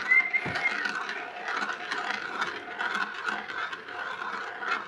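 A marble rolling around a clear plastic marble-run funnel bowl and on down its plastic track: a steady rolling rattle made of many small clicks.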